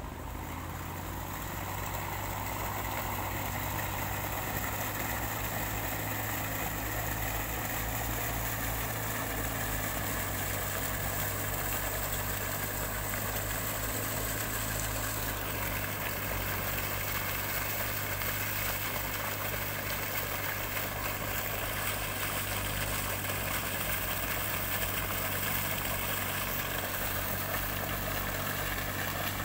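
Mitsubishi diesel engine running steadily, driving a river sand-suction pump, with the even rush of sand slurry pouring from the discharge pipe. It grows louder over the first couple of seconds and then holds steady.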